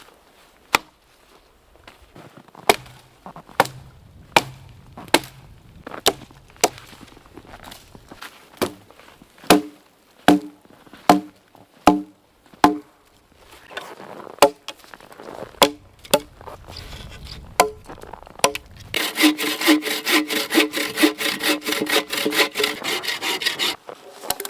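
Firewood being worked by hand: a steady series of sharp strikes on wood, about one a second, some ringing with a hollow knock, then near the end a saw cutting through wood with quick back-and-forth strokes.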